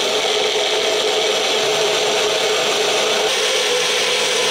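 Countertop blender running steadily at speed, blending a smoothie of frozen blueberries, ice and yogurt.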